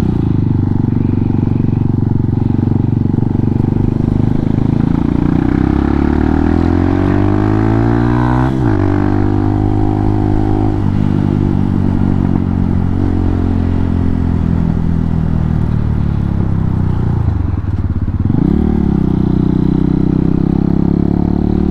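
Hawk 250 dual-sport motorcycle's single-cylinder four-stroke engine running under way through its aftermarket JFG bolt-on exhaust. The revs climb steadily for several seconds and drop sharply at an upshift about eight seconds in, then hold fairly steady before dipping and climbing again near the end.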